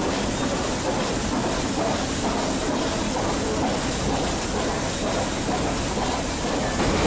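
Nilgiri Mountain Railway toy train running, a steady rumble and hiss of the moving coach.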